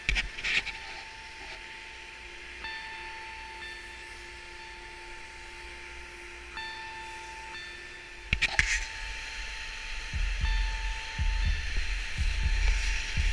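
A chairlift ride: a steady hiss with a whining tone that comes and goes. After a cut about eight seconds in come skis scraping over snow on a downhill run, with wind rumbling on the camera microphone and getting louder toward the end.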